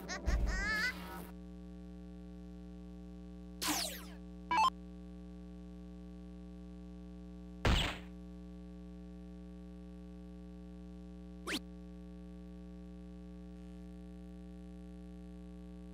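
Electronic soft-tip dartboard game machine playing its short electronic effects: the tail of a warbling jingle at the start, two short effects near 4 s, a dart-hit sound for a bull about 8 s in and a brief one for a single about 11.5 s in. A steady electrical hum runs under them.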